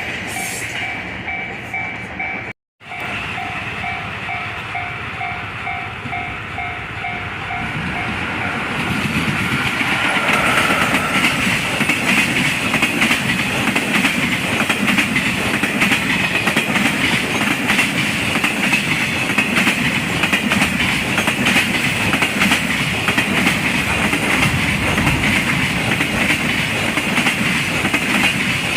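Japanese level-crossing warning bell ringing in a rapid, even pulse for the first several seconds, cutting out for an instant about two and a half seconds in. Then a freight train passes at full speed, its wheels clattering over the rail joints in a loud, steady rattle to the end.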